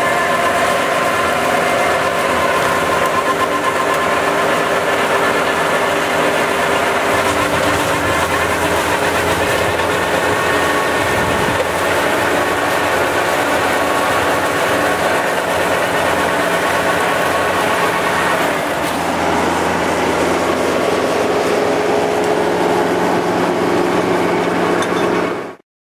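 Tractor engine and Valentini Skorpion mulcher rotor running under load, shredding brush. It is a loud, steady machine drone that cuts off abruptly near the end.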